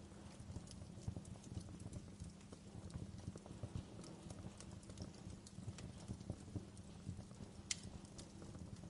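Campfire crackling, with irregular sharp pops over a steady low rumble of burning wood; one louder pop near the end.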